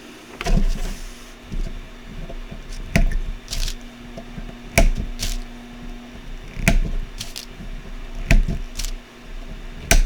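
Irregular light clicks and taps of small tools and electronic parts being handled on a workbench during kit soldering, about ten in all, over a faint steady hum.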